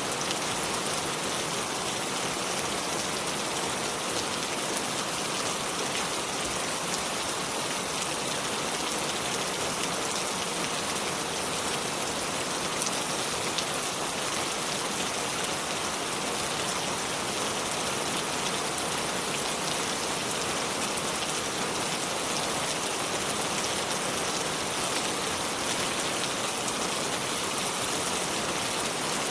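River water flowing over stones, a steady, even rush with fine high splashing that does not change.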